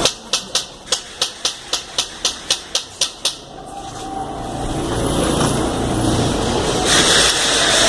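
Airsoft gun firing a quick string of single shots, about a dozen sharp cracks at roughly three to four a second, stopping after about three seconds. A steady rustling hiss then builds up.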